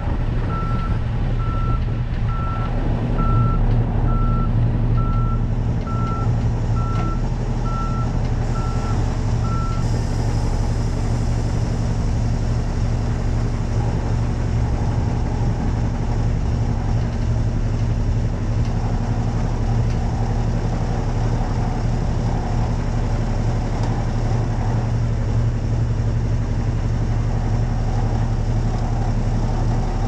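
Peterbilt semi truck's diesel engine running steadily at low speed while the truck reverses, its backup alarm beeping in an even rhythm, a little under one and a half beeps a second, until it stops about ten seconds in. The engine runs on steadily after the beeping ends.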